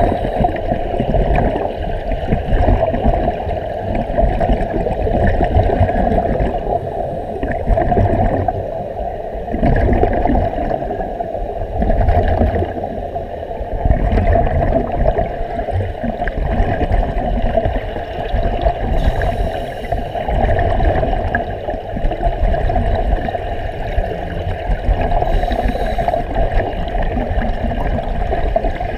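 Underwater noise heard through a waterproof camera housing: a steady, muffled rush and gurgle of water and air bubbles from divers' breathing gear, with short louder bursts of bubbles about two-thirds of the way in and again near the end.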